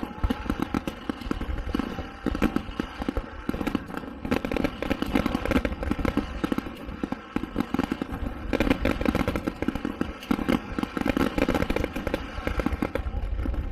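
Aerial fireworks going off in quick succession: a continuous run of pops and crackles with low booms underneath, over a steady hum.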